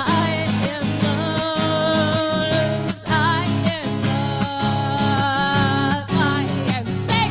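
A voice singing long held notes with vibrato, without clear words, over steadily strummed acoustic guitar.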